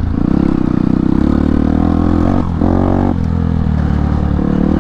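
Modified Hero Impulse motorcycle's single-cylinder engine running with an open silencer and open air filter as it is ridden off-road. Its pitch rises briefly about two and a half seconds in, then settles back.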